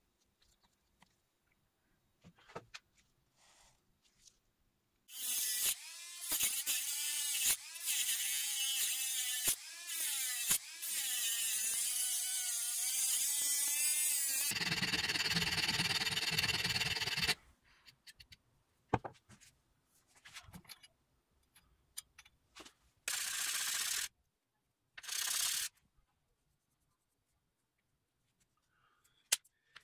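Handheld rotary tool with a cut-off disc cutting a thin metal plate clamped in a vise, a loud whine that wavers up and down in pitch as the disc bites, then about three seconds of harsher cutting noise. Scattered clicks and two short bursts of rasping noise follow, then quiet handling.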